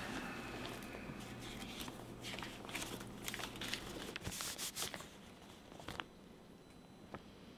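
Crumpled sheet of paper being unfolded and handled, crinkling in quick short rustles that are loudest about four to five seconds in, then thin out.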